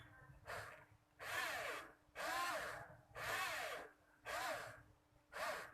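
Small electric motor run in short bursts, about one a second, each spinning up and falling back in pitch.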